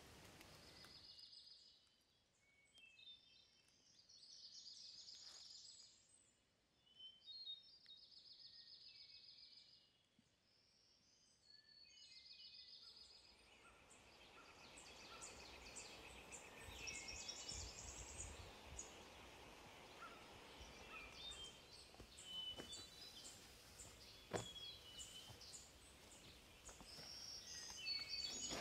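Songbirds singing in the woods: a short high trill repeated every few seconds over near-quiet air, then from about halfway a busier mix of chirps and calls over a faint outdoor hiss.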